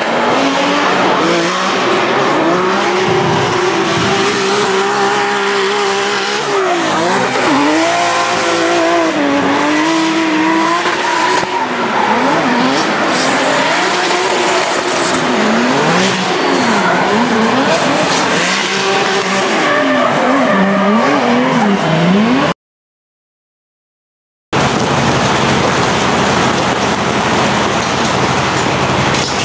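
A 2JZ-swapped Toyota GT86 drift car's straight-six engine revs up and down again and again through a drift run, with tyre squeal. Near the end the sound cuts out completely for about two seconds, then a steady rushing noise follows.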